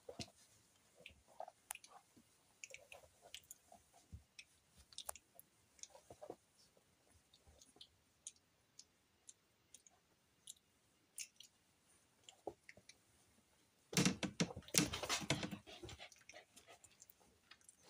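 Four-week-old puppies moving about on a blanket and mouthing one another: scattered small clicks and soft scuffles, then a louder stretch of scuffling and rustling, about two seconds long, near the end.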